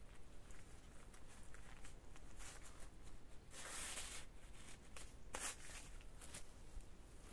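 A knife working the top of a wooden pole, giving scattered light clicks and two louder scrapes, one about halfway through and one a second or so later.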